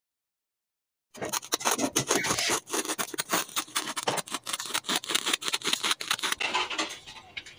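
Large tailor's scissors cutting through sheer fabric: a fast, continuous run of crunching snips and fabric rustle that starts suddenly about a second in and grows fainter near the end.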